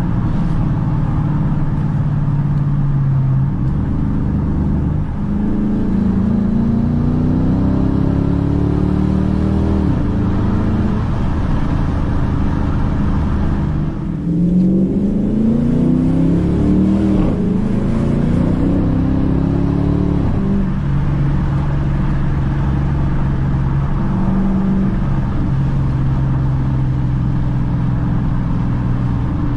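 Dodge Challenger R/T's 5.7-litre Hemi V8 heard from inside the cabin, running steadily under way. Its note climbs in one long sweep and, about halfway through, in a run of short rising sweeps as the car accelerates and shifts up, then settles back to a steady cruise.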